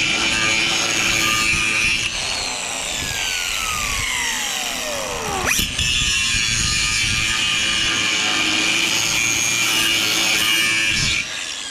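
Angle grinder grinding down a weld on galvanized steel pipe, a loud steady high whine. About a third of the way in it is let off and its pitch falls, then it snaps back up to speed. Near the end it shuts off and winds down.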